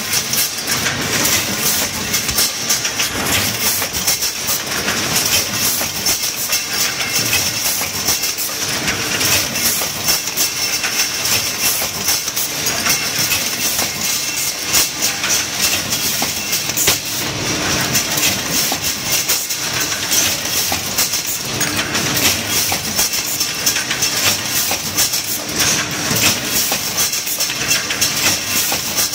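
Automatic metal broom-handle assembly machine running: a dense, continuous clatter and rapid clicking of steel tubes on the conveyors and working stations, over steady machine noise.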